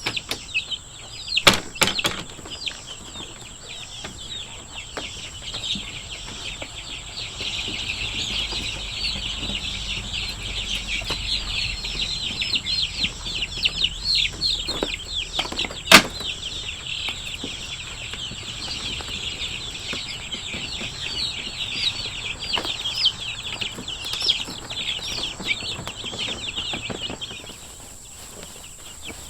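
A brooder full of three-week-old Freedom Ranger chicks peeping in a dense, continuous chorus of quick high chirps, which thins out near the end. A few sharp knocks sound over it, the loudest about halfway through.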